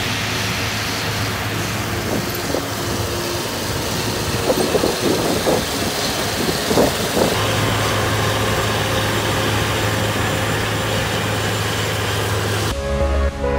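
Claas Lexion 8700 combine harvester running as it harvests wheat: a steady engine hum under a broad rushing machine noise. Music comes in near the end.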